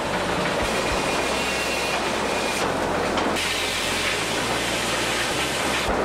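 Large circular sawmill saw cutting lengthwise through a log as the log carriage runs along its rails: a steady, dense machine noise.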